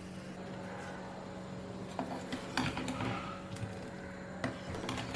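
Pot of banana stem soup heating on the stove: a few soft clicks and pops over a steady low hum.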